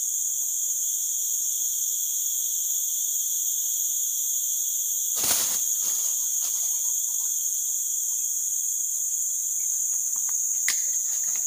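Steady chorus of forest insects, ringing at several high pitches at once, with a single brief knock about five seconds in.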